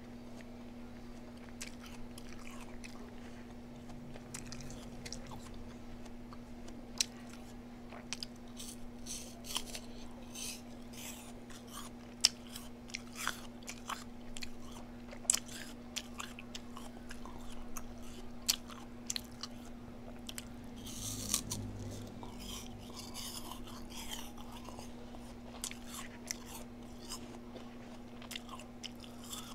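A person eating close to the microphone: chewing and biting, with many short, crisp clicks and smacks scattered through, over a steady low hum.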